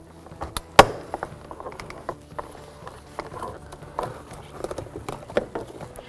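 Plastic armrest switch trim on a Cadillac SRX front door clicking and creaking as it is pried up off its retaining clips, with one sharp snap about a second in.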